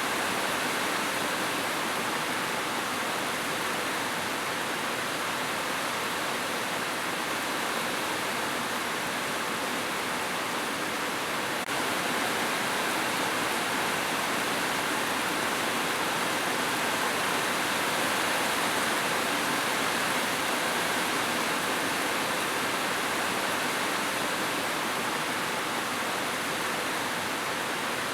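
Steady rushing water, an even unbroken wash of noise. A faint click about twelve seconds in, after which the level is very slightly higher.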